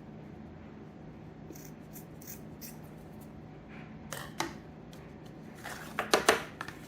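Scissors cutting fur trim in a few groups of short snips, the loudest near the end.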